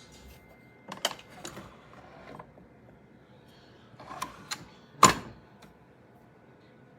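A series of sharp clicks and knocks in two clusters, one about a second in and one about four seconds in; the loudest is a single snap about five seconds in.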